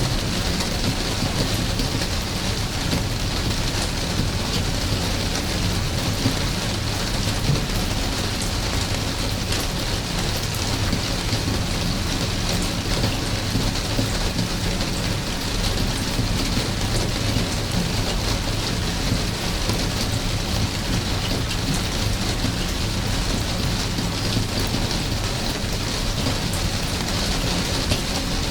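Steady rain falling, an even hiss with fine scattered drop ticks over a constant low rumble.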